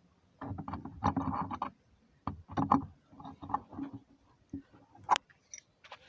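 Irregular knocking and scraping of a hard, hollow object being handled, in short bursts with a sharp click near the end.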